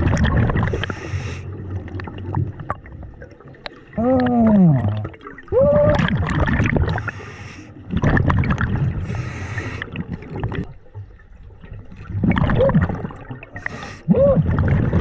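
A scuba diver breathing underwater through a regulator: hissing breaths and gurgling exhaled bubbles, recurring every few seconds, with short rising-and-falling tones among them.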